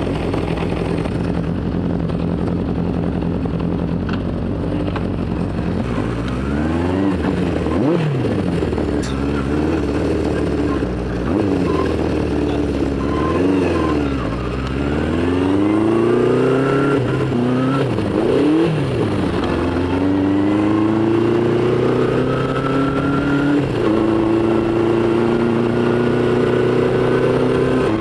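Honda CB500 Four's air-cooled inline-four engine idling steadily, then pulling away, its pitch climbing and dropping again and again as the bike accelerates and shifts through the gears in traffic. It then settles into a steadier, slowly rising run, with one more upshift a few seconds before the end.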